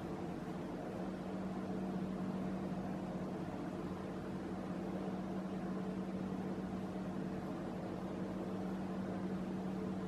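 A steady low hum with a faint hiss behind it, unchanging throughout: room tone.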